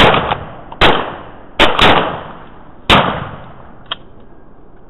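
Shotgun firing five blasts in about three seconds, two of them almost together, each trailing off in a short echo. A short, much quieter click follows about a second after the last shot.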